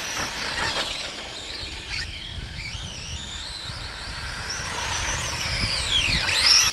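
RC race cars' motors whining on a dirt track, several high tones sliding up and down in pitch as the cars speed up and slow through the turns. Near the end one car's whine drops and then climbs steeply, the loudest moment.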